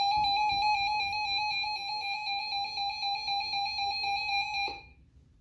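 Electronic siren sounding one steady high tone with a fast, slight flutter, cutting off abruptly near the end.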